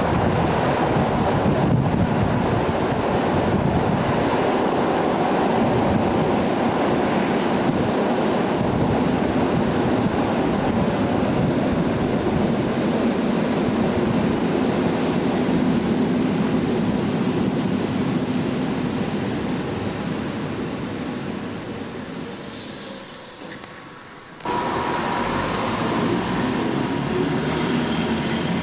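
EN57 electric multiple unit running, heard from an open window: a steady rush of wheels on rail mixed with wind on the microphone, fading as the train slows. About three-quarters of the way in the noise breaks off suddenly and comes back as a steady train rumble with a thin steady tone.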